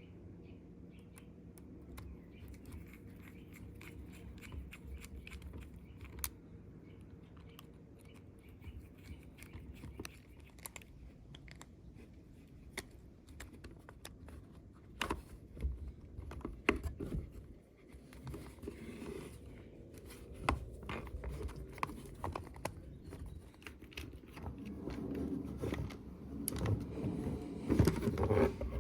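Scattered light clicks, taps and rustles of hands working on small parts of a cordless screwdriver, over a low steady hum. The handling grows busier near the end.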